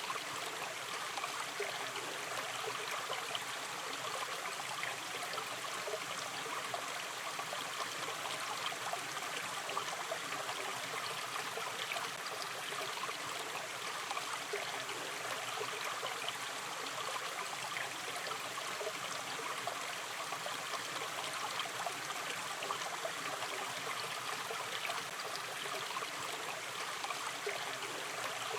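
A shallow river stream running gently, a steady babble with fine trickling and gurgling detail.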